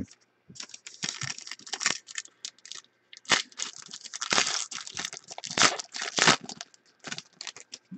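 A foil trading-card pack wrapper crinkling and tearing in the hands as it is opened, in a run of short, irregular crackles.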